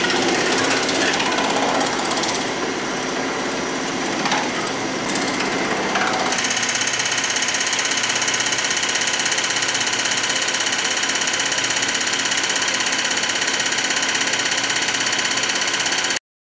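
Pullmax-style reciprocating power hammer running, its rounded die hammering rapidly on a sheet-metal panel. About six seconds in, the sound turns to a steadier, even clatter as the dies cycle with no panel between them. It cuts off suddenly near the end.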